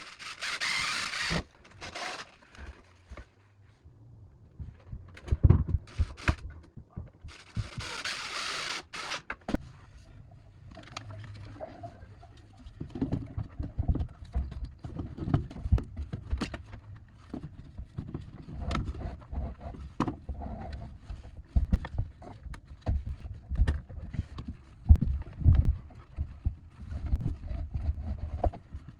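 Two short hissing bursts in the first ten seconds, then a long run of irregular knocks, taps and thumps, like tools and parts being handled.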